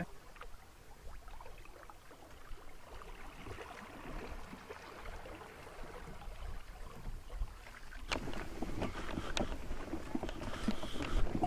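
Choppy water slapping and splashing against a canoe's hull as it is paddled into the wind, with small ticks of water. About eight seconds in, this cuts abruptly to a louder mix of rustling and knocks.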